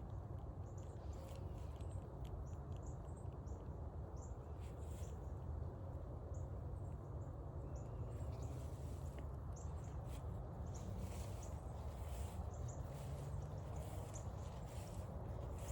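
Footsteps and rustling along a forest trail, coming more often in the second half, with many short high bird chirps over a steady low outdoor rumble.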